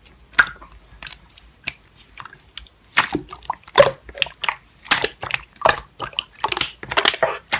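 Slime being squeezed and poked by hand, making irregular wet clicks and crackly pops that come thicker in the second half.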